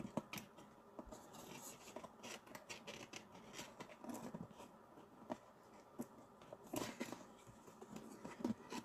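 Faint scattered rustles, scrapes and clicks of hands working at something on a desk, with a louder rustle about seven seconds in.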